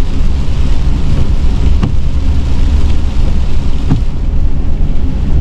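Steady low road-and-engine rumble inside a vehicle's cabin driving on a rain-soaked road, with tyre hiss from the wet pavement. Faint knocks about every two seconds come from the windshield wipers at the ends of their sweeps.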